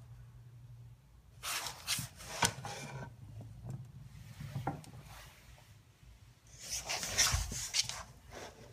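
A husky pawing and scraping under wooden furniture and on a laminate floor, reaching for a ball stuck underneath. The scraping comes in two bouts, about a second and a half in and again near the end.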